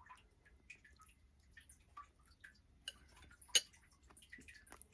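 Eating sounds: faint, scattered wet clicks of chewing soft boiled potato and tomato, with one sharper click about three and a half seconds in.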